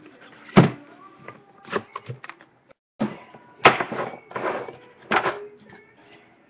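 Hands unwrapping a sealed 2011 Upper Deck Exquisite football card box: clear plastic wrap crackling and tearing, with several sharp knocks of the box as it is handled.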